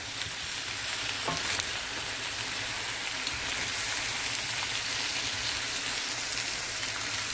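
Pot of bora (yard-long beans) and chicken sizzling steadily on the stove, with a couple of faint clicks.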